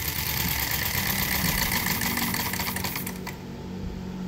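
Homemade miniature vertical-twin four-stroke engine, fuelled on white gas, running with a fast rattle. About three seconds in it cuts out and coasts down, leaving only a low hum.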